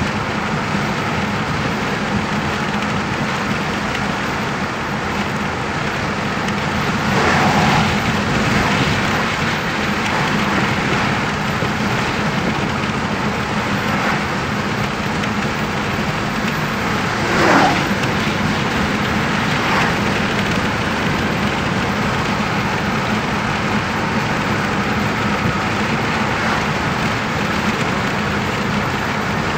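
Steady road noise inside a moving car's cabin at highway speed: a constant tyre and engine hum. About halfway through, a short louder whoosh falls in pitch as an oncoming truck passes.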